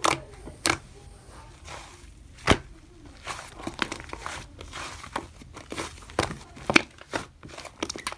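Slime being played with by hand: irregular sticky clicks and pops with a soft crackle between them, the sharpest pops about two and a half seconds in and again around six to seven seconds.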